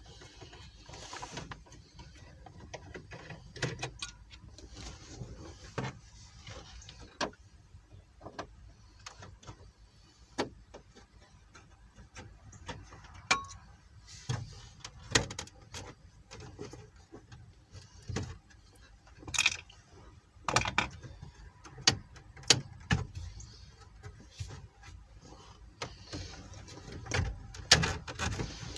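Plastic lower dashboard trim on a 1997 Chevrolet Lumina being pried and pulled loose around the radio: scattered clicks, taps and knocks from the pick tool and the plastic clips, more frequent and louder in the second half.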